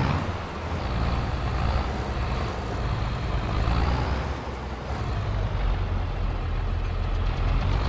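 Combine harvester running while harvesting corn: a steady low engine drone with a higher whine that slowly rises and falls.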